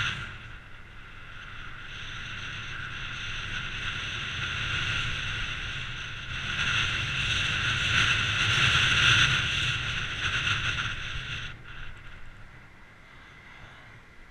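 Steady rush of wind on the microphone and tyre noise from a bicycle-mounted camera riding along a tarmac cycle path. The noise swells through the middle and drops away sharply about three-quarters of the way through.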